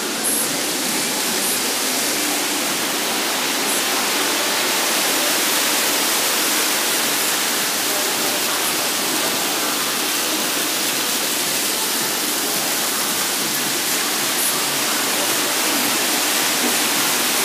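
Indoor fountain's jets and cascading water wall splashing into the pool: a steady, even rush of falling water.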